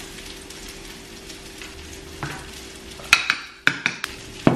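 Food sizzling steadily in an oiled frying pan over a low steady hum, with several sharp metallic clinks and knocks in the last second and a half from a spoon, measuring cup and box grater being handled on the counter.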